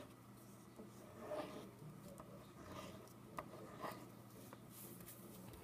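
Faint, intermittent scratching of a pencil drawing curved strokes on a sheet of paper, with a couple of small ticks.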